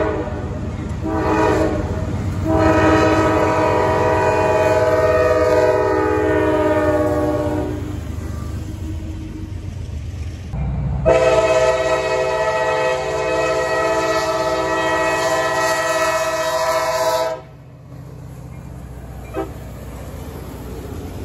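Diesel locomotive air horn sounding a chord of several tones in long blasts over the low rumble of a freight train. A brief blast near the start is followed by two long ones, each cut off suddenly. After the last, only the quieter rumble of the passing train remains.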